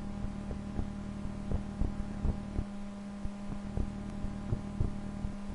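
Steady electrical hum with soft, irregular low clicks or taps, about two a second.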